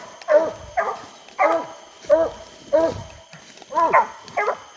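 English coonhounds barking at a tree, short chop barks about one and a half a second. This is tree barking, the hounds' sign that they have a raccoon treed.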